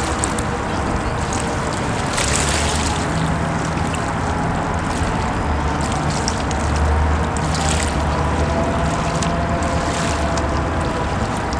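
Water splashing and running under a steady low engine hum, with brief surges of hiss now and then.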